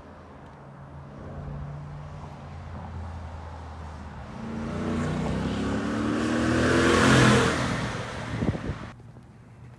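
Unsupercharged 5.0 V8 of a Ford F-150 Shelby Super Snake at full-throttle acceleration. The truck closes in with its engine note rising in pitch and getting louder. It passes loudest about seven seconds in, then drops in pitch and fades as it pulls away, until the sound cuts off suddenly near the end.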